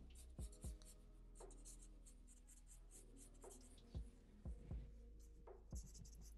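Faint scratching of a felt-tip marker on paper: a run of short, quick hatching strokes, with a few soft low thumps among them.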